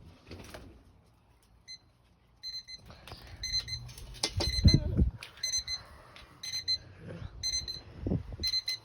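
Electronic alarm clock beeping: quick clusters of high-pitched beeps repeating about once a second, beginning about two seconds in. Low thumps sound underneath, the loudest near the middle.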